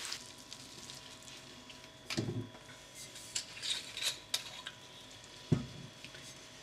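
Wooden spatula stirring a thick creamy beef mixture in a frying pan, scraping and knocking against the pan now and then, with one sharper knock about five and a half seconds in and another thud about two seconds in. Faint sizzling from the pan underneath.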